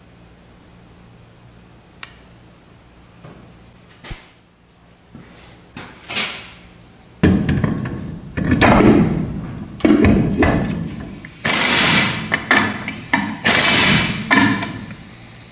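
Air impact wrench run in repeated short bursts, tightening lug nuts on a wheel, starting about halfway in. Before that there are only a few light clicks and knocks of parts being fitted by hand.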